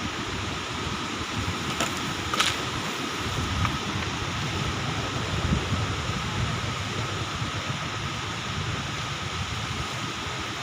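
Strong wind rushing and buffeting the microphone in gusts, with a couple of short knocks about two seconds in.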